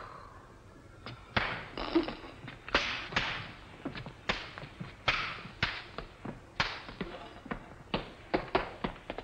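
Hard shoes stamping and scuffing on a floor: an uneven run of sharp thumps and taps, about two or three a second, starting about a second in.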